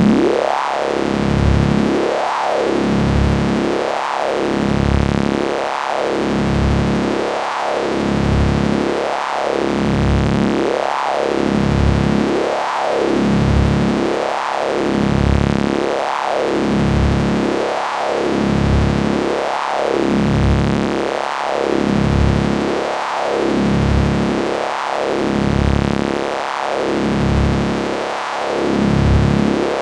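Synthesized science-fiction electricity effect: a steady electric hum with a sweeping tone that rises and falls again about every second and a half, repeating evenly.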